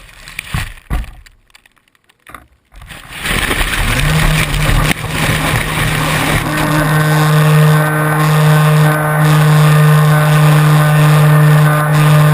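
A few knocks of handling on the plane, then about three seconds in the RC plane's electric motor and propeller spin up and run steadily with a constant pitched drone and a rush of air over the on-board microphone.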